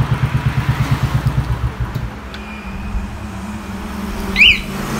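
Royal Enfield Bullet's single-cylinder engine idling with an even thump, about ten beats a second, then cutting out about two seconds in. About four and a half seconds in, the anti-theft alarm gives one short electronic chirp.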